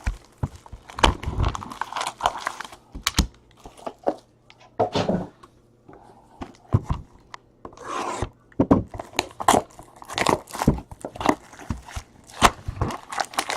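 Trading card packaging being torn open and handled: irregular ripping and crinkling of wrappers and cardboard, with sharp taps and clicks.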